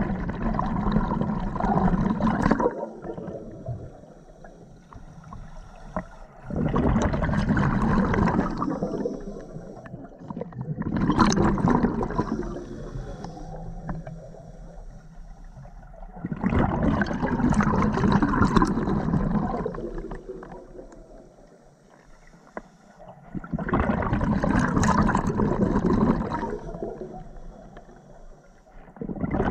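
Scuba diver breathing underwater through an open-circuit regulator: bursts of exhaled bubbles gurgle past the regulator, five times, each lasting two to three seconds, about every six seconds, with quieter stretches between as the diver inhales.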